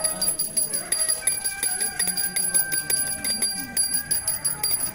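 Temple bell ringing continuously: a rapid run of metal strokes with a sustained ringing tone, as during the puja.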